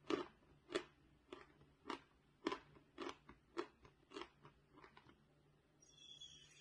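Close-up chewing of a mouthful of dry chalk bar: crisp crunches a little under two a second, growing fainter toward the end. Near the end a faint steady hiss with high tones begins.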